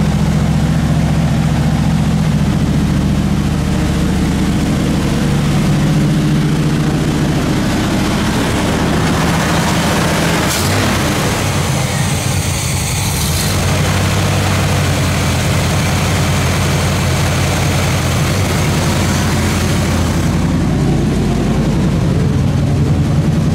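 A 1970 Chevelle SS's 396 cubic-inch big-block V8 idling steadily, freshly started after years parked. A brief hiss rises over it about ten seconds in.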